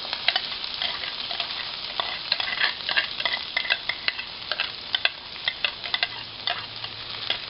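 Chopped onion and garlic sizzling in hot oil in a frying pan, with frequent irregular clicks and scrapes of a metal spoon against the bowl and pan as the onion is scraped in.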